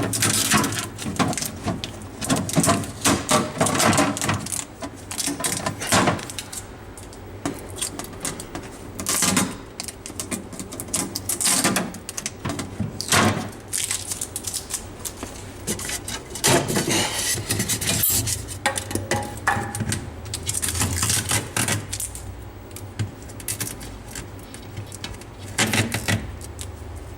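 Irregular handling noises on a compact refrigerator and its packaging: rustling, scraping and light plastic and glass clatter, in clusters with quieter gaps.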